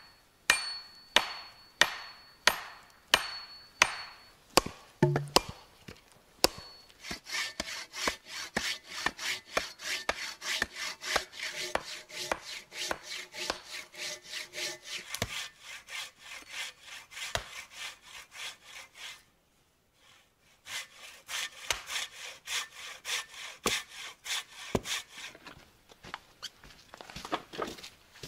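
A hatchet strikes a wooden pole in a series of sharp, evenly spaced blows. Then a hand saw cuts wood in quick back-and-forth strokes, breaking off for a moment about two-thirds of the way through and starting again.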